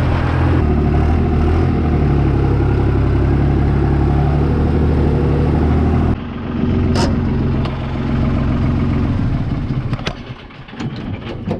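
A vehicle engine running steadily. About six seconds in, the sound abruptly drops to a quieter engine, which then fades into a few scattered clicks and knocks near the end.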